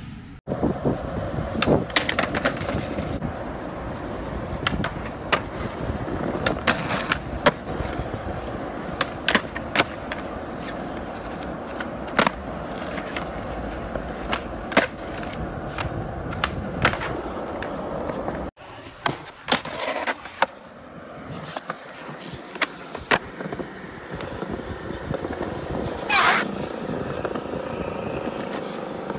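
Skateboard wheels rolling over rough pavement, broken by many sharp clacks as the tail pops and the board lands. Partway through, the rolling turns quieter and smoother on concrete, with a brief scrape near the end.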